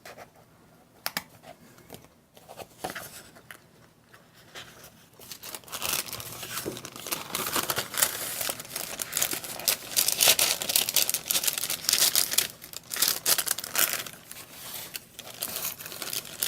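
Crafting materials being handled, crinkling and rustling: a few light clicks at first, then several seconds of dense crinkling from about a third of the way in, thinning out near the end.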